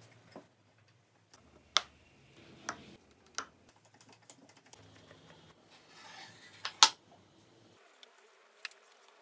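Wooden combination dials of a homemade lock being turned by hand, giving a handful of sharp, separate wooden clicks and knocks; the loudest comes about two-thirds of the way through.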